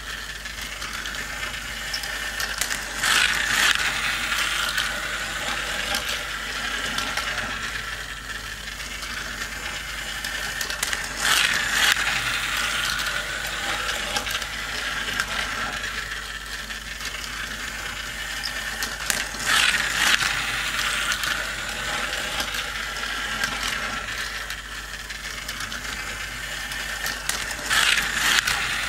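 Battery-powered toy racing track running, its small cars carried round by a whirring, clicking gear mechanism. A louder clattering swell comes about every eight seconds, four times in all.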